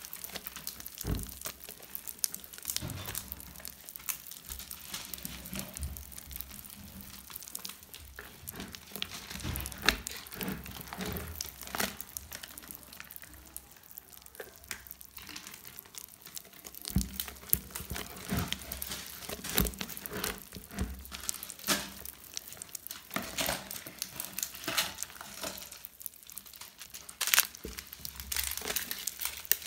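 Slime mixed with beads being squeezed and kneaded by hand, crackling with irregular sharp clicks and pops.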